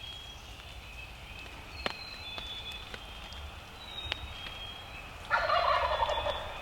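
A wild turkey tom gobbles once, a loud rattling gobble lasting about a second, starting about five seconds in. Before it there are faint thin high whistles and a few sharp clicks.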